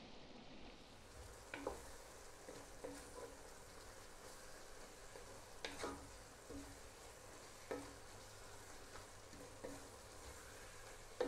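Wooden spatula stirring and tossing noodles in a nonstick pot, with soft, irregular knocks and scrapes against the pan every second or two over a faint sizzle.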